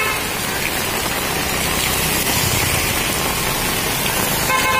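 Steady heavy rain falling on a waterlogged street, with a vehicle passing through the water; a vehicle horn toots briefly near the end.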